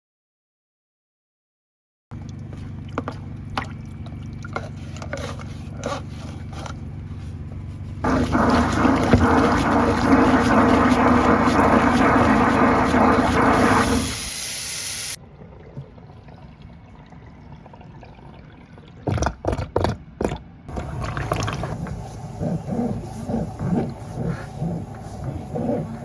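Water running and draining through a kitchen sink drain, heard in several short cuts. The loudest is a strong, steady rush of water from about eight to fourteen seconds in. There are a few sharp knocks around twenty seconds, and a pulsing rhythm near the end.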